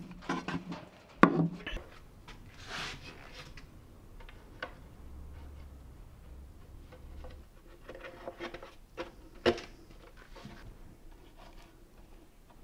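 Hand work on wood: scattered sharp knocks and light taps, the loudest about a second in and another about nine and a half seconds in, with a brief scrape between.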